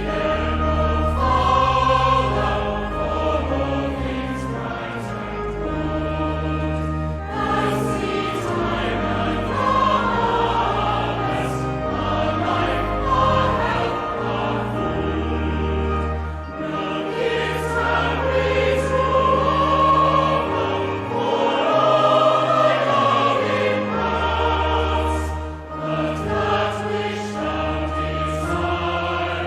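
Choir singing a hymn with instrumental accompaniment, held bass notes under the voices.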